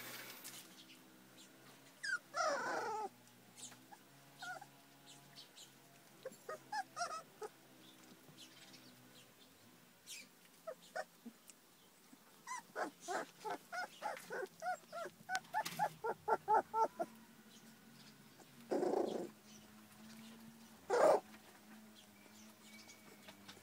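Young puppies whimpering and squeaking. There are scattered short squeaks, a fast run of high squeaks about halfway through, and a few louder, longer cries, two of them near the end.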